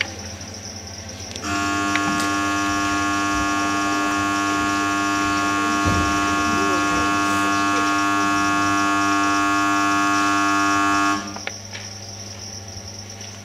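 A steady electric buzzer sounds for about ten seconds, switching on abruptly a second and a half in and cutting off just as abruptly, over a constant low mains hum: a hall's curtain-up buzzer before a stage performance.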